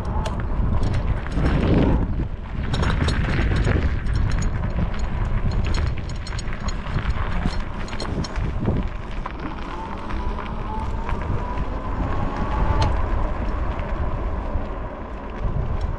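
Wind buffeting the microphone on a moving e-bike, with scattered clicks and rattles from the ride and a faint thin whine that rises a little past the middle.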